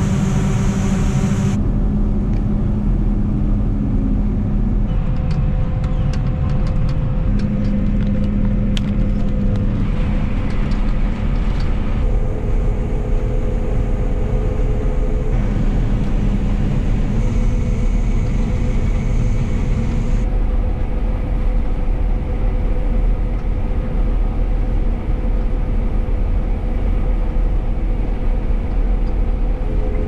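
John Deere 9760 combine running steadily under load while harvesting soybeans, a constant engine and machinery hum. Scattered light ticks come in for a few seconds in the middle.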